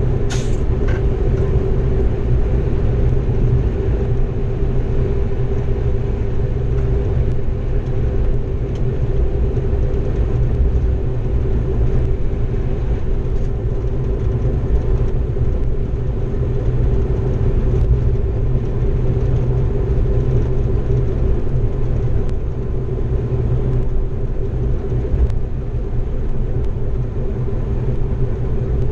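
Driver's cab of a class 232 'Ludmilla' diesel locomotive under way: the diesel engine and running gear make a steady low rumble with a constant hum over it. A brief sharp click about half a second in.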